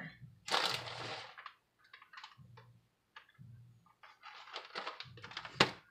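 Plastic bag of shredded cheese crinkling as cheese is pinched out and sprinkled by hand, followed by scattered light ticks and one sharp click near the end.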